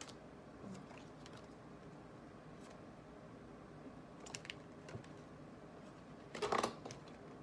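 A deck of tarot cards being shuffled and handled by hand: soft, scattered flicks and taps of the cards, with a louder brief burst of card noise near the end.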